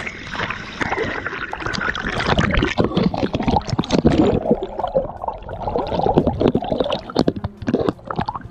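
Wet plastic sheeting crinkling and rubbing close to the microphone in dense crackles, with water splashing and sloshing underneath.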